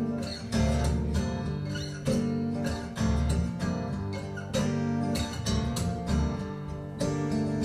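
Music playing through Triangle Borea BR03 BT powered speakers, picked up by room microphones: an instrumental passage with strummed guitar over a steady beat and bass, without vocals.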